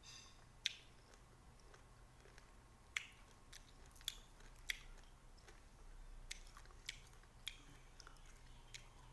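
Quiet eating sounds from small green limes: chewing, with scattered sharp, wet clicks as a lime is bitten and its peel torn by hand.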